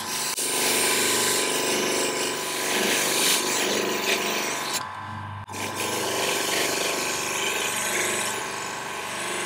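Steel knife blade (Ontario RAT 1) pressed against a spinning buffing wheel charged with polishing paste: a steady rubbing hiss as light scratches are polished out. About five seconds in the blade lifts off for a moment, leaving only the machine's motor hum, then goes back onto the wheel.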